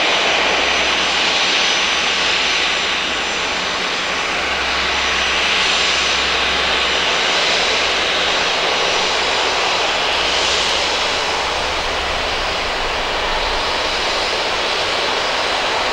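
Boeing 737-500's CFM56-3 turbofan engines running at low taxi power as the airliner rolls onto the runway: a steady jet whine and rush.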